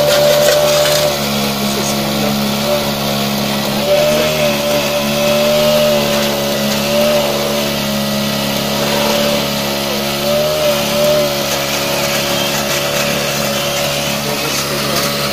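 Motor of a home-built mini crawler excavator running steadily, with a pitch that wavers slightly now and then as the arm, bucket and tracks are worked.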